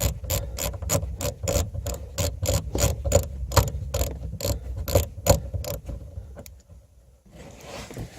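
Hand ratchet clicking steadily, about four clicks a second, as a speaker mounting screw is backed out; the clicking stops about six seconds in.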